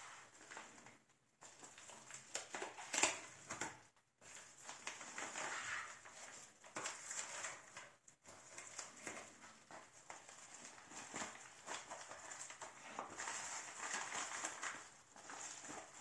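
Handling noise from unboxing a graphics card: packaging rustling with light irregular clicks and taps.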